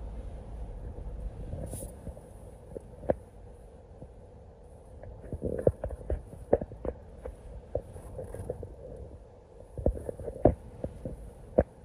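Low rumble of a car driving, with a scatter of sharp taps and knocks over the second half.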